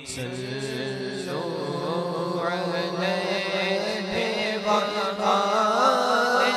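Male naat reciter chanting an ornamented, unaccompanied devotional melody over a steady background drone. His voice climbs higher and grows louder near the end.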